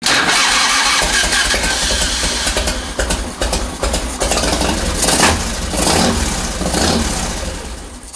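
Harley-Davidson V-twin engine running unevenly, its CV carburetor sputtering through the open intake with the air cleaner off. The owner suspects a float fault is behind the sputtering.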